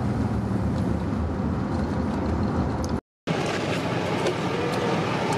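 Steady engine and road hum inside a moving car's cabin, broken by a brief dropout to silence about three seconds in, after which the cabin hum carries on.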